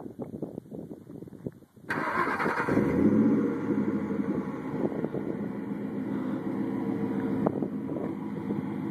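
2001 Ford SVT Lightning's supercharged 5.4-litre V8 with Flowmaster cat-back mufflers, cranking on the starter for about two seconds before it catches. It flares up loudly about a second later, then settles into a steady idle.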